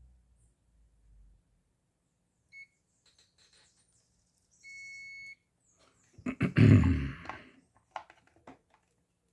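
Digital multimeter's continuity tester beeping as the probes touch the blender's power cord: a brief chirp, then a steady high beep of nearly a second, the sign that the wire has continuity. A loud clatter of handling follows, then a few light clicks.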